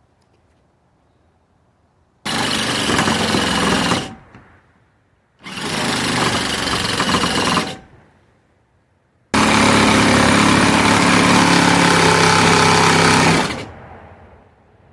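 Electric saw with a blade cutting into the van's sheet-metal body, running in three bursts: two of about two seconds each, then a longer one of about four seconds.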